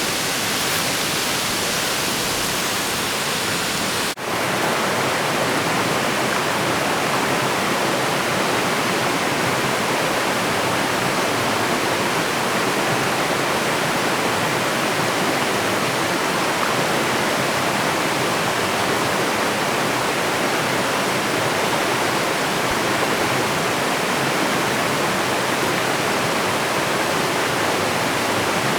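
Waterfall water rushing and splashing steadily. There is a brief dropout about four seconds in, after which the rush goes on slightly fuller.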